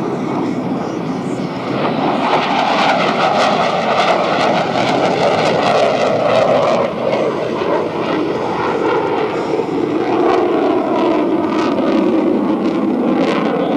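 F-14 Tomcat's twin jet engines running loud and sustained, with a crackling rasp, growing louder over the first couple of seconds.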